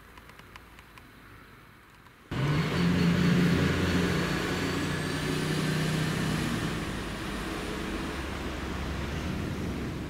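Quiet at first with a few faint ticks. About two seconds in, the steady running noise of a vehicle starts abruptly, with low droning tones and a thin high whine that rises about halfway through, then holds.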